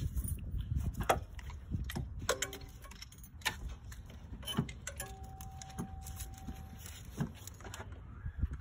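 Scattered light clicks and clinks of hand tools and parts being handled under the hood, over a low rumble. About halfway through, a faint steady tone runs for nearly two seconds.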